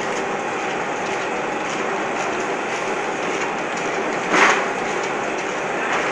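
Automatic eye-drop bottle filling and capping machine running with a steady mechanical clatter, plastic dropper bottles moving through its star wheel and conveyor. One brief, louder burst of noise comes about four and a half seconds in.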